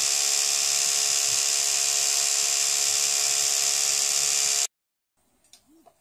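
Electric toothbrush running with a steady buzz, cutting off suddenly about three-quarters of the way through.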